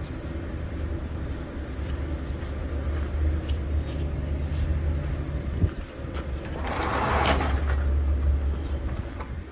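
Semi truck engine running with a steady low rumble. About halfway through there is a single sharp knock, and near the end a hiss swells and fades over about a second and a half.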